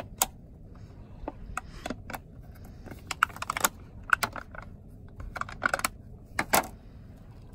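Clear plastic tub of sliced cheese being opened and a slice pulled out: the stiff plastic lid and wrapping crackle and click in irregular quick runs of sharp clicks.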